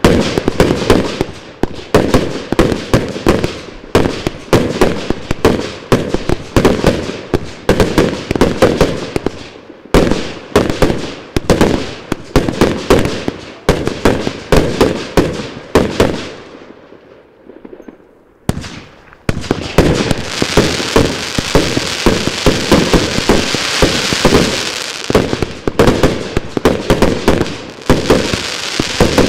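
Magnum 1.2" Willow Mayhem, a 100-shot 30 mm fireworks cake, firing a quick string of shots and bursts, about two to three a second. About sixteen seconds in it fades to a short lull, then resumes with shots over a continuous crackling hiss.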